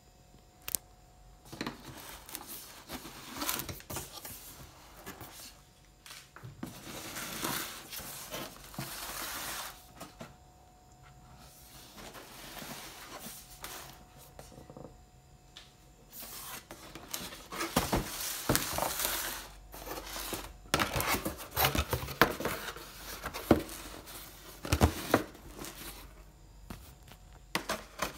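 Cardboard box and packaging being handled and opened: irregular rustling, crinkling and scraping of cardboard and paper with sharp clicks, busier and louder in the second half.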